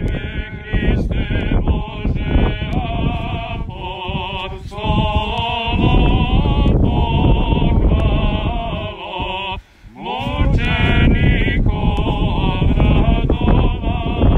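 Men's voices chanting an Orthodox liturgical hymn with a wavering vibrato, over wind rumbling on the microphone. The chant breaks off briefly about ten seconds in, then resumes.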